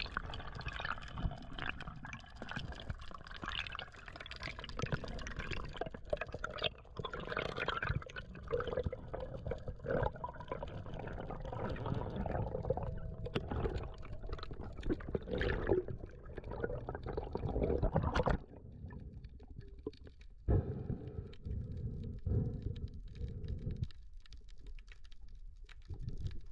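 Underwater water noise picked up by a camera in its housing: a continuous wash dense with small clicks and crackles. About two-thirds of the way through, the higher sounds drop away abruptly, leaving a duller low rumble with occasional surges.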